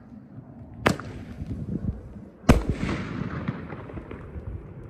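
Consumer aerial firework shells bursting. A sharp bang comes about a second in and a louder bang about two and a half seconds in. Each bang is followed by scattered crackling and a fading echo.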